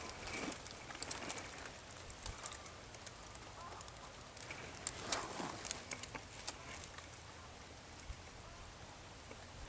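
Quiet open-field ambience: faint bird calls with scattered small clicks and rustles.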